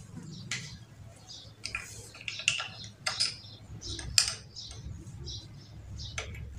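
Metal spanner clicking and clinking against the casing bolts of a monoblock water pump as they are loosened: irregular sharp metallic ticks a few times a second.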